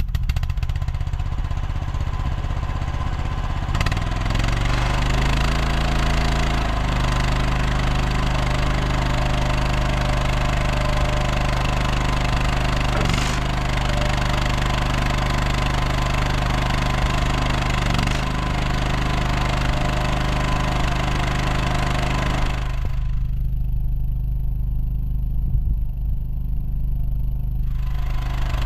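Engine of a tracked ride-on mini skid steer running just after starting. It idles, rises to a higher steady speed a few seconds in, and holds there. Near the end the higher-pitched mechanical noise over the engine drops away for several seconds while the engine keeps running.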